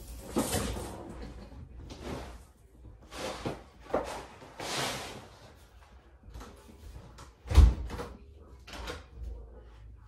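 Scattered door- and cupboard-like knocks and clunks with some rustling, as household things are handled, with one heavy thump about seven and a half seconds in.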